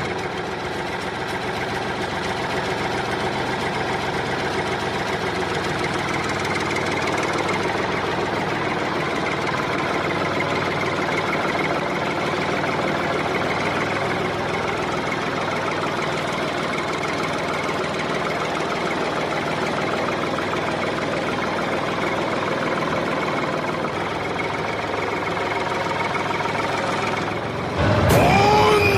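A tractor engine running steadily at an even pace. Near the end, a louder, short voice-like sound that rises and falls in pitch comes in over it.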